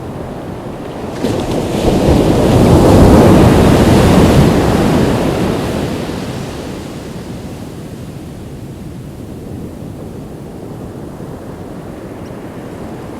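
Ocean wave breaking on the shore: a rush of surf that surges up about a second in, peaks, then washes back and fades over several seconds into steady lower surf.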